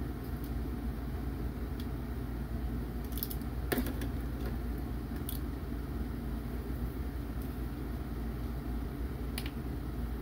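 Steady low room hum with a handful of faint, short clicks of small plastic toy parts being handled, the sharpest about four seconds in.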